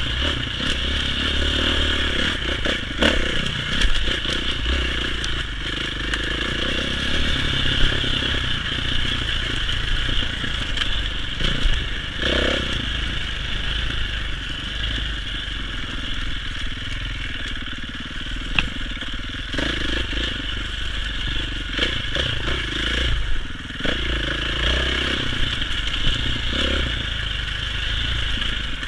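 Dirt bike engine running as the bike is ridden at speed along a rough trail, heard from the rider's helmet. Short clattering knocks come through again and again as the bike goes over bumps.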